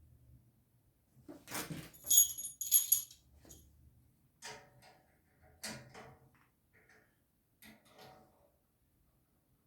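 Small metal parts clinking and clattering as they are handled during assembly: a bright ringing jingle about two to three seconds in, then a few scattered knocks.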